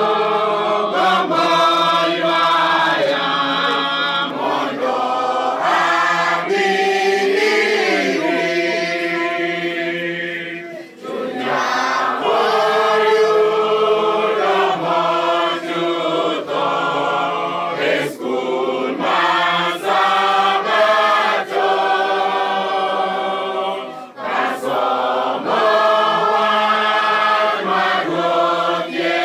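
Church congregation of men and women singing a hymn together, unaccompanied, in long held lines. The singing drops off briefly about eleven seconds in and again near twenty-four seconds, between phrases.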